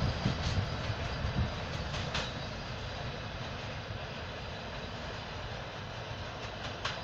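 Freight train with a diesel locomotive at its rear rolling away along the track. Its rumble fades over the first couple of seconds and then holds low, with a couple of faint sharp clicks from the rails.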